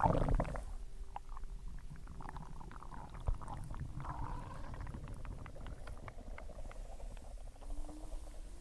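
Human stomach growling after a meal, the sound of digestion. A loud gurgle comes right at the start, followed by a run of small squelches and bubbling gurgles, and a short rising groan near the end.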